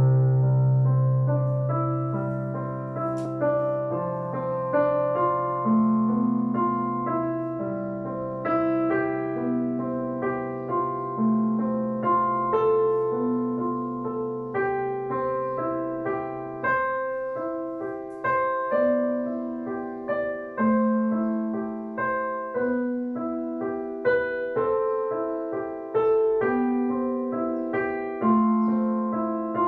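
Slow instrumental piano music: single notes struck one after another and left to fade, over a long held low note that stops about 17 seconds in.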